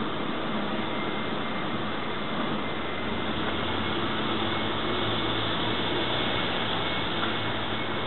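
Steady street-traffic noise, with a low rumble that swells about three seconds in and fades near the end.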